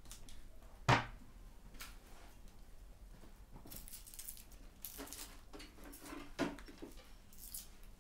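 Small knife peeling a red onion: dry, papery crackling and scraping as the skin is cut and pulled away, with a sharp knock about a second in and a second one after about six seconds.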